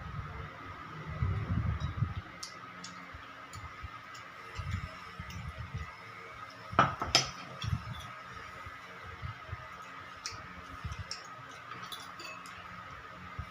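Cutlery clinking against a plate during a meal, in scattered small clicks with one louder, ringing clink about seven seconds in. Soft low thumps come between the clinks, and a faint steady whine runs underneath.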